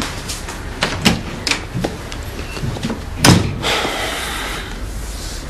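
A door being handled and shut: a few light clicks, then one loud knock about three seconds in.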